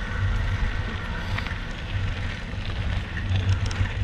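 Wind rumbling on the microphone of a camera riding a downhill mountain bike, over the crunch and rattle of tyres rolling on a rough gravel road, with scattered small clicks.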